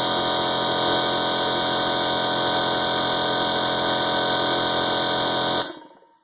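Ferm electric air compressor running steadily with a loud, even hum, then stopping about five and a half seconds in.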